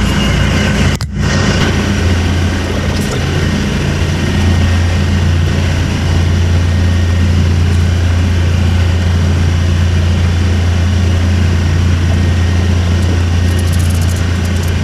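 Diesel engine of a Manitou telehandler running steadily at a constant low speed, with a brief dropout about a second in.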